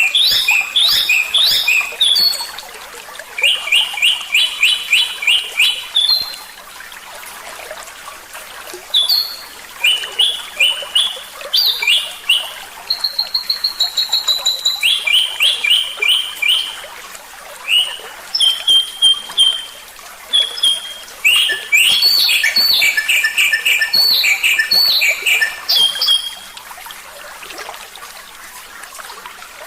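A songbird singing in phrases of fast trills of repeated high notes, separated by short pauses, over a steady faint hiss.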